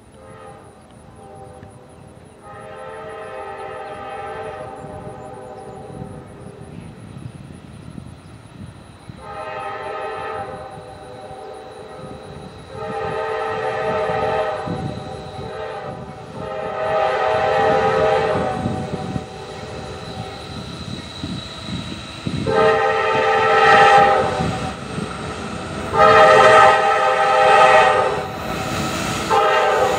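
Multi-chime air horn of a Norfolk Southern freight train's lead diesel locomotive, sounding a series of long blasts for a grade crossing over the low rumble of the approaching train. The blasts come a few seconds apart and grow steadily louder as the train nears.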